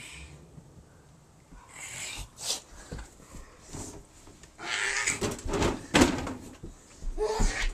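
A child making animal noises in play as a pretend saber-toothed beast, in irregular bursts, mixed with knocks and bumps of bodies and a wooden-framed board on the floor, the loudest about five and six seconds in.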